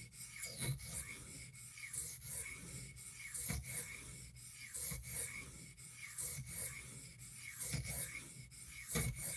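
D2 steel pocketknife blade being stroked back and forth across a Washita Arkansas whetstone, a steady run of short scraping strokes. The blade's main edge is being reground on the stone's coarse face to raise a burr and bring back a shaving edge.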